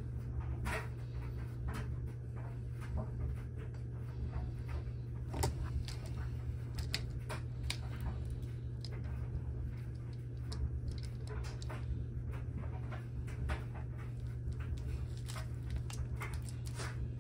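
Scattered light clicks and knocks from handling a battery cable, copper lug and lever crimping tool, over a steady low hum.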